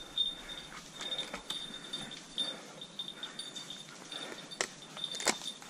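Footsteps and brushing through dense undergrowth, with two sharp twig snaps near the end, while a dog's beeper collar gives a faint, high-pitched beep again and again.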